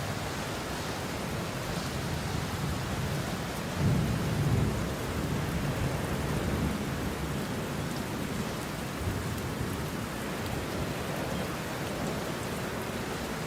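Steady rain, with a low rumble swelling about four seconds in and fading over a couple of seconds.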